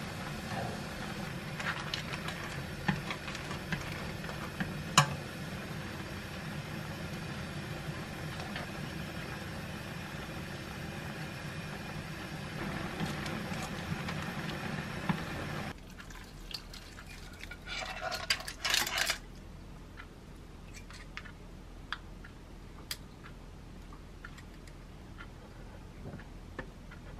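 Clam kalguksu noodles and zucchini boiling hard in a pan: a steady bubbling with occasional clacks of wooden chopsticks stirring. About sixteen seconds in it cuts to quieter kitchen handling, a short clatter of dishes and then light clicks of chopsticks lifting kimchi onto a plate.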